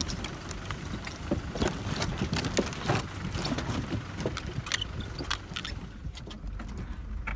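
Loose logs of a wooden log bridge knocking and clattering under the tyres of a slow-moving 4x4, over the steady low rumble of its engine. The knocks thin out near the end as the vehicle rolls off the bridge.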